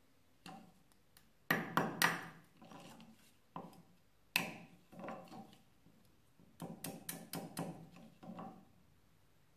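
Mosaic hammer striking Venetian smalti glass on a steel hardie set in a wooden block, cutting it into small tesserae: sharp cracks in irregular groups, with a quick run of strikes near the end.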